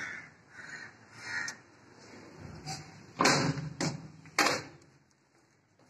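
Three short harsh calls, like a bird's caws, about two-thirds of a second apart, then a little past three seconds in, three loud knocks and thuds about half a second apart.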